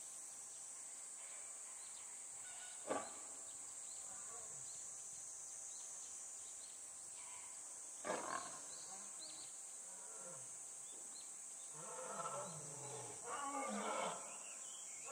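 Lions: two short, sharp calls from the standoff between the lionesses, then a lioness starts roaring in the last few seconds, a run of repeated deep calls growing louder, with a steady high insect drone behind.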